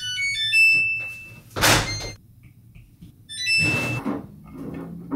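Front-loading washing machine's control panel beeping: a quick run of short electronic beeps at stepping pitches, a thud about a second and a half in, then another few beeps ending in a longer tone.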